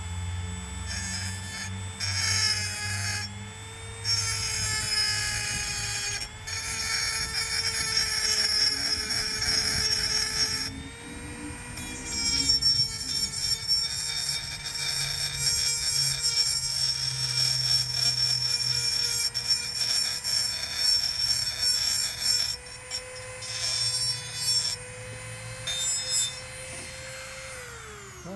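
Dremel rotary tool spinning a carbide burr at high speed, a steady high whine, with stretches of harsh grinding as the burr cuts into soft EMT conduit to dress a slot. Near the end the motor is switched off and its whine falls away.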